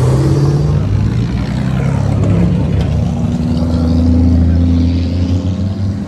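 Engines of several vintage sports racing cars running as the cars roll past one after another at low speed. One engine note rises and grows louder around four seconds in.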